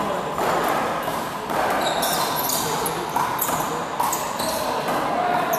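One-wall handball rally: the small rubber handball smacks sharply against the wall and floor again and again, echoing in a large hall, with players' sneakers shuffling and scuffing on the court.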